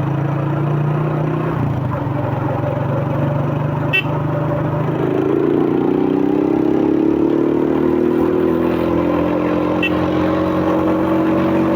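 2001 Suzuki Fiero motorcycle's single-cylinder four-stroke engine, breathing through a K&N RC1060 pod air filter, running under way. The note shifts early on, a sharp click comes about four seconds in, and from about five seconds in the engine note climbs slowly.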